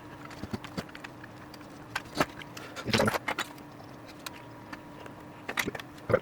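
Small hard parts and tools being handled on a workbench: scattered clicks and light clatter, with a busier burst about three seconds in, over a faint steady hum.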